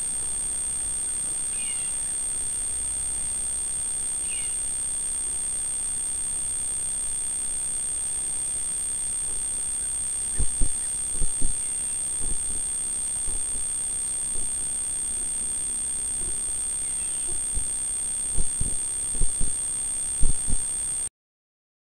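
Short, high, falling peeps, a few in the first five seconds and one more later, from a great curassow chick, over a steady high electronic whine from the trail camera. Scattered low thumps from about ten seconds in. The sound cuts off just before the end.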